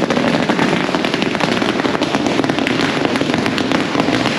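A string of firecrackers going off in rapid succession: a loud, dense, continuous crackle of small bangs that does not let up.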